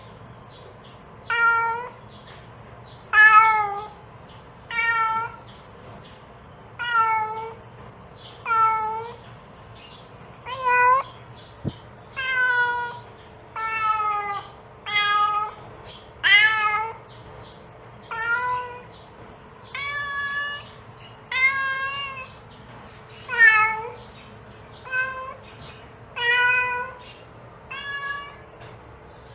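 A mother cat meowing over and over to call her kittens: short calls of about half a second each, one every second and a half to two seconds, some rising and falling in pitch.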